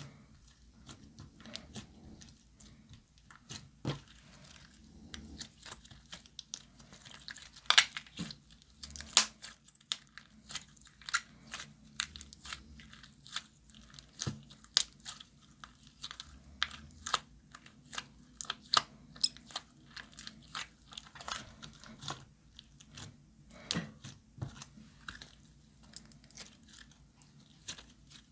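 Glossy slime being squished and kneaded by hand, giving irregular sticky clicks and pops, with the loudest snaps about 8 and 9 seconds in.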